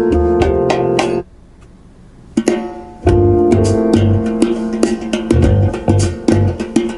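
Pop music played through an Alpine car audio system. One song ends about a second in, and after a short lull the next song starts with plucked guitar and a pulsing bass line.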